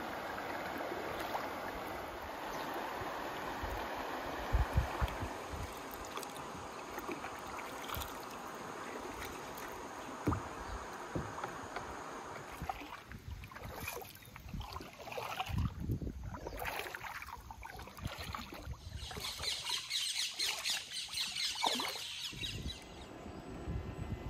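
Rippling river water around a paddled kayak, with a few low knocks, giving way about halfway through to irregular gusts of wind buffeting the microphone.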